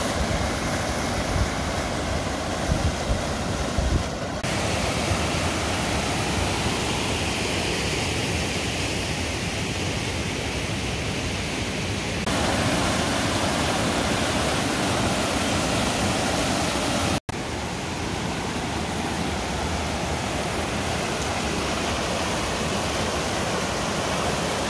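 Mountain creek rushing and cascading over boulders: a loud, steady white-water rush. Its tone changes abruptly a few times where separate clips are cut together.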